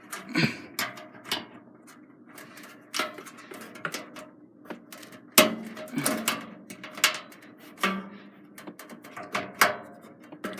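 Irregular clicks, knocks and scrapes of plastic parts being pushed and forced into place during a PC build, the plastic push pins under strain.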